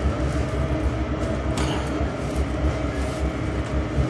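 A steady low mechanical hum and rumble, with a brief knock about one and a half seconds in.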